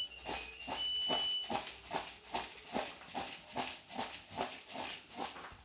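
Fried brinjal pieces tossed and shaken in a plastic bowl to coat them in spice powder: a steady rhythmic swish-and-tumble, about two to three strokes a second.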